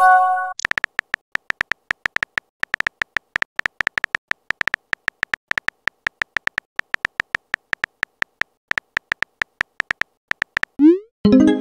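Simulated phone-keyboard typing from a texting-story app: rapid beep-like key clicks, several a second, as a message is typed out. A short chime sounds at the start, and near the end a quick rising swoop and another chime mark a message being sent.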